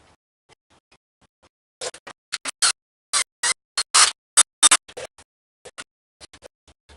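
A run of short, irregular scraping strokes, faint at first, louder and closer together in the middle, then fainter again.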